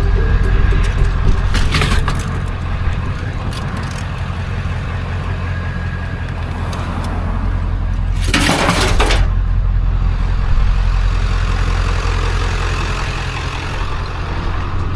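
Motor vehicle running, a steady low rumble, with a brief rush of noise about eight seconds in.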